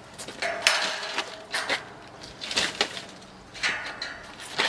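Old bicycle clanking and rattling as it is set down against a metal railing: a run of about six sharp metal knocks and rattles, each with a short ring.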